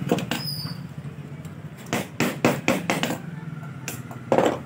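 Small hammer tapping the rust-seized steel end cap of a spring air pistol's cylinder to loosen it: light metallic taps, two near the start, then a quick run of about six a couple of seconds in, and a few more near the end.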